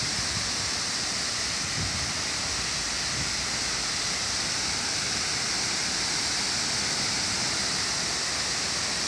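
Water of the Fonte Luminosa falling from its large tiered cascade basins and spray jets, a steady, even rushing hiss.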